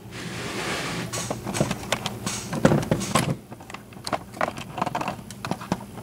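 Handling noise: a rustling hiss for the first three seconds or so, with many small clicks and taps scattered through, most of them between two and three seconds in.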